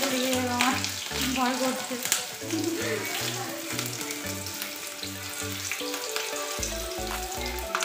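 Slit green chillies and bay leaf frying in hot oil in a wok: a steady sizzle, with background music that has a regular low beat.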